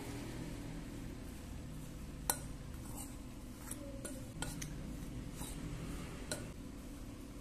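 Metal fork stirring mashed potato and cornstarch in a glass bowl, clinking against the glass several times, with one sharper clink a little after two seconds in. A steady low hum runs beneath.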